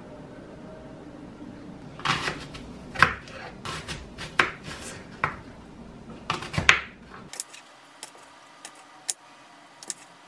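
A kitchen knife cutting an apple on a wooden cutting board: a run of sharp knocks and crunches as the blade goes through and meets the board, thinning to a few spaced-out taps in the last few seconds.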